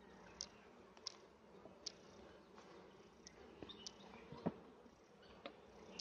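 Faint steady humming of western honeybees around an opened hive, with a few sharp clicks and knocks as the wooden hive is handled, the loudest about four and a half seconds in.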